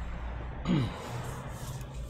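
A steady low hum, with a short falling vocal sound from a person about three-quarters of a second in. A few faint laptop key clicks come near the end as keys are pressed to test the keyboard.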